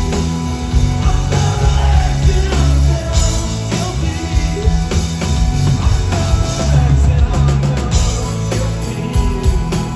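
Live rock band playing a song loudly, with drums and bass strong in the mix.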